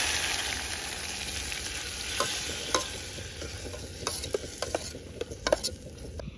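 Chopped tomatoes sizzling in hot oil in a cooking pot. The loud sizzle comes in all at once and dies down slowly, with a few sharp clicks in the second half.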